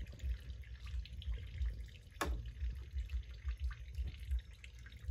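Liquid dripping and trickling from a wooden cassava press as the grated cassava is squeezed, with an irregular low rumble under it and one sharp click about two seconds in.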